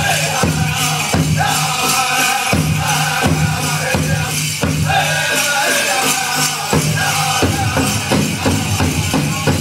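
Powwow drum group singing a chicken dance song in high voices over strokes on a big drum.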